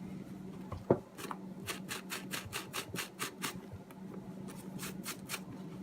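A brush scrubbing the worn leather lining inside a boot, quick scratchy strokes about six a second through the middle, loosening the flaking lining so that it comes off. A single knock about a second in.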